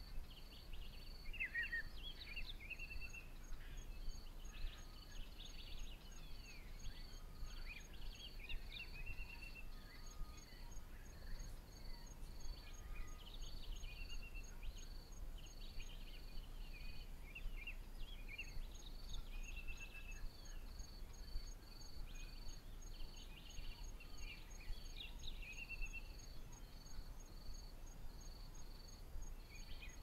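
African bush ambience: insects chirring in even, rapid pulses that pause briefly a few times, with a fainter, higher insect ticking steadily. Several birds give scattered chirps and short sweeping whistles over them.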